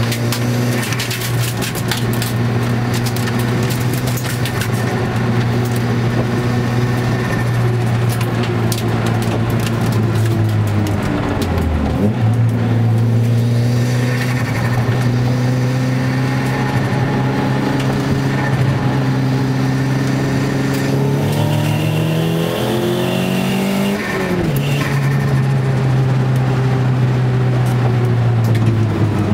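Nissan CA20DET turbocharged 2.0-litre four-cylinder engine running hard under load, heard from inside the car's cabin at track speed. Its note climbs steadily and dips sharply twice as the throttle comes off between pulls.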